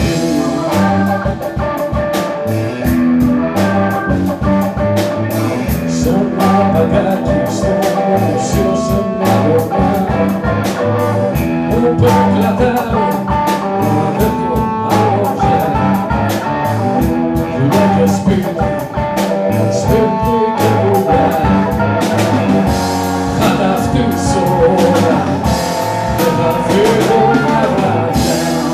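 Live band playing a song: a man singing over electric guitar, keyboard, bass guitar and a drum kit keeping a steady beat.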